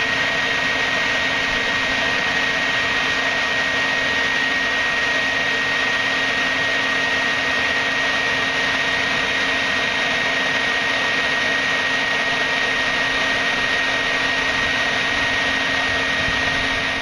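Hair dryer running at full blast as the air supply of a homemade charcoal forge: a steady blowing fan noise with a constant high whistle and a low hum, forcing air into the coals to keep them red hot.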